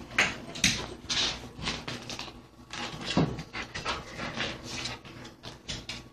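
Husky–Labrador mix dog panting in quick, irregular breaths while nosing at a cat, with a short whimper about three seconds in.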